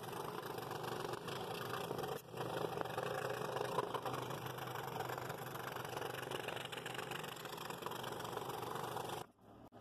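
Scroll saw running steadily with its fine No. 3 blade cutting through a stacked hardwood inlay blank. The sound dips briefly about two seconds in and stops shortly before the end.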